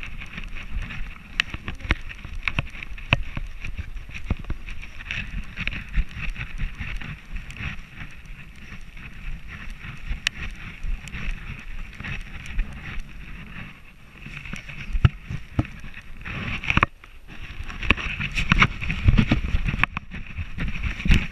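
Handling noise from a camera strapped to a dog's harness as the dog moves: a steady rumble of rubbing and jostling with frequent small knocks and wind on the microphone, getting louder and busier near the end.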